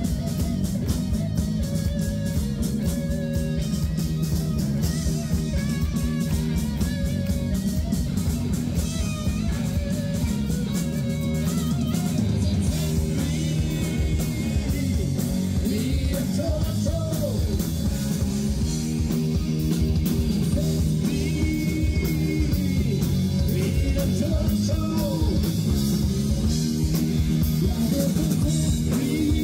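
Rock band playing with guitar over a steady beat.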